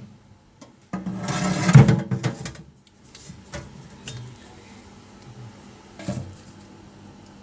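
Metal being slid and scraped into place for about two seconds, followed by a few light knocks.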